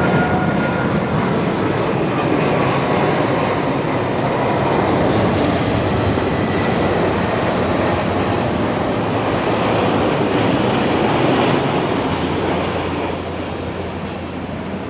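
Jet engines of a large airliner flying low past on approach, a steady loud rumble that swells and then dies away near the end.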